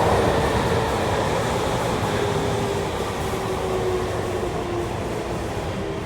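Tokyu 3000 series electric train running in a subway tunnel, its wheel and rail rumble steady while the traction motor whine falls in pitch and the noise slowly eases as the train slows.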